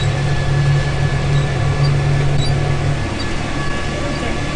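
John Deere tractor's diesel engine droning steadily, heard from inside the cab while it pulls a disc harrow through field stubble. The drone eases a little about three seconds in.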